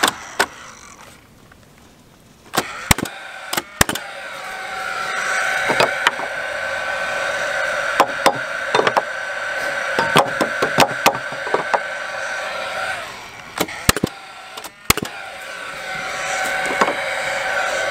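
Paslode cordless gas framing nailer driving 3-inch nails into treated 2x6 floor joists: a series of sharp shots and wooden knocks, with the tool's fan whirring steadily between them.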